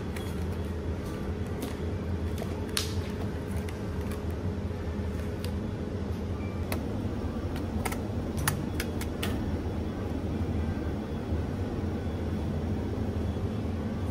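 Steady low hum with irregular light clicks and taps, about a score of them, thinning out after about nine seconds.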